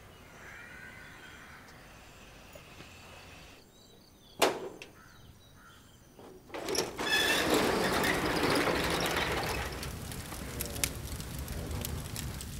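A sharp metal clank, then a corrugated-metal rolling shutter rattling loudly for about three seconds as it is pulled up. After it, a wood fire crackling in a cremation furnace.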